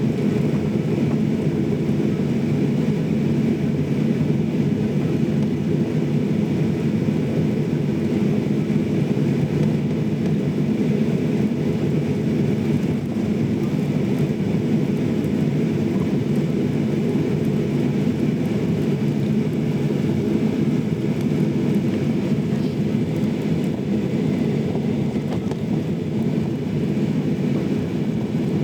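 Steady, unchanging cabin noise of a jet airliner with its engines running, a low rumble heard from inside the passenger cabin.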